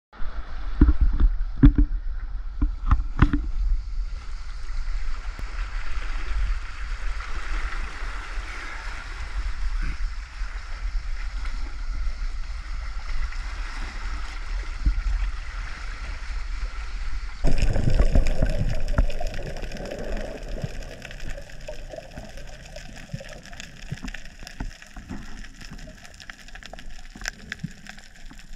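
Seawater sloshing and washing among coastal rocks, with a low wind rumble on the microphone and a few knocks in the first few seconds. About two-thirds of the way in, the sound changes abruptly to a quieter, muffled water sound heard underwater.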